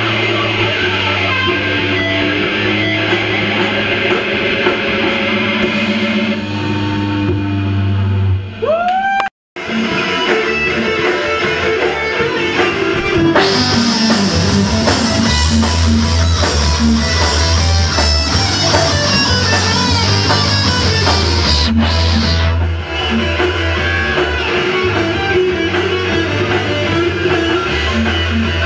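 Live rock band playing loud, with electric guitars, bass and drum kit. About nine seconds in, a note glides upward, the sound cuts out for a moment, and the band carries on.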